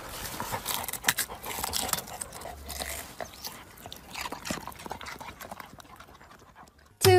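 A dog rooting with its nose among vegetable leaves and soil around a white radish: irregular rustling and crackling that thins out toward the end. Just before the end a loud pitched sound cuts in, falling in pitch.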